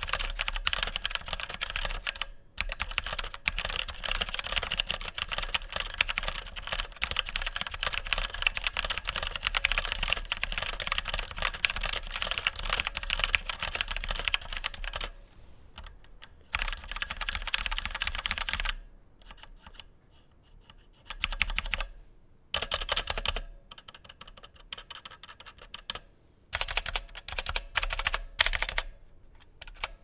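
Typing on a Motospeed CK101 tenkeyless mechanical keyboard with Outemu red linear switches and double-shot ABS keycaps: a fast, continuous run of keystrokes for about the first half, then shorter bursts of typing with brief pauses between them.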